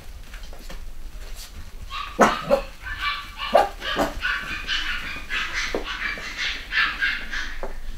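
Cavachon puppies yapping and whining as they play, with short sharp yaps from about two seconds in and a run of high-pitched whines and squeals from about three seconds until near the end.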